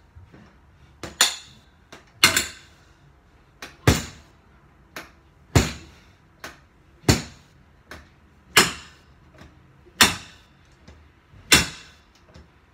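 A stick whacking a freestanding reflex punching bag and its metal pole, about eight hard strikes roughly a second and a half apart, each with a short ringing tail and a lighter knock just before it.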